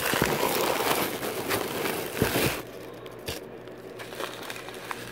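Packaging and tissue paper crinkling and rustling close to the microphone, mixed with handling noise as the phone is moved and set down. It starts with a knock, rustles loudly for about two and a half seconds, then goes quieter with a few light clicks.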